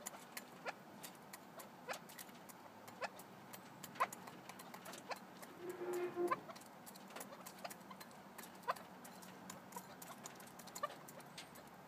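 Red-legged partridges pecking grain from a feed bowl: sharp, irregular taps throughout, with one brief low call from a bird about six seconds in.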